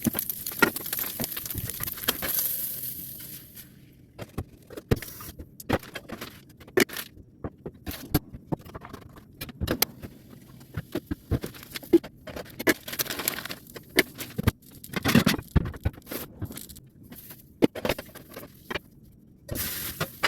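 Kitchen sounds of cooking an omelet: a hiss over the first few seconds, then utensils and cookware clicking, scraping and knocking at irregular intervals.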